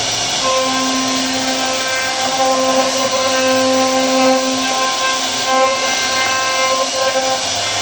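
CNC router spindle running and cutting wood: a steady loud hiss with a whine whose strength rises and falls every second or so as the cut load changes.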